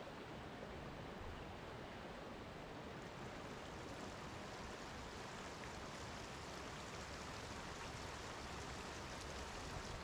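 Small creek rushing steadily over a shallow rocky bed, an even wash of flowing water.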